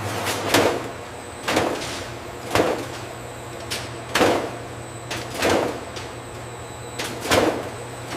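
Processing machinery running with a steady low hum, broken by six short sliding swishes spaced about one to two seconds apart.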